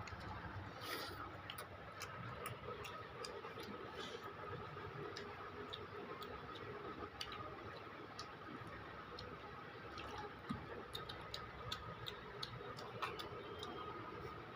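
Pakoras frying in hot oil: scattered faint crackles and pops at uneven spacing, over a faint steady hum.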